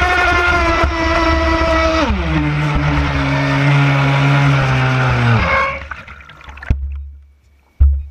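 WLtoys Arrow RC speedboat's electric motor, on a 3S LiPo, running hard with a steady high whine over rushing spray. About two seconds in the pitch drops as the throttle eases, and at about five and a half seconds the motor winds down and stops, leaving water lapping and two low thumps near the end.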